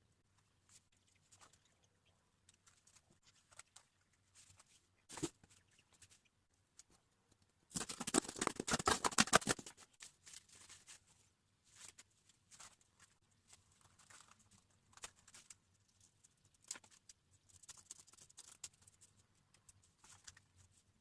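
Cardboard being handled and worked, with scattered small taps and clicks and a short knock about five seconds in. About eight seconds in there is a loud, rapid rasping lasting about two seconds, such as cardboard being cut or torn.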